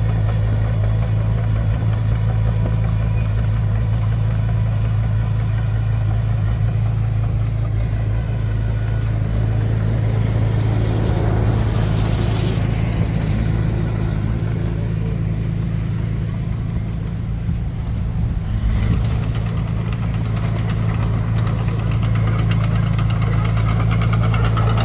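A vehicle engine running steadily with an even low hum, easing slightly about two-thirds of the way through.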